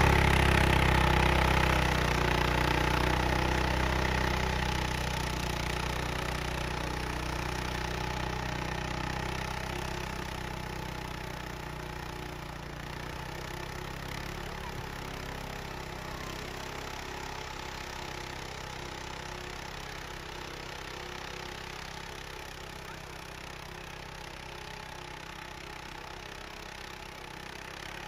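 Arctic Cat ATV on snow tracks, its engine running as it drives off through deep snow, growing steadily fainter as it moves away.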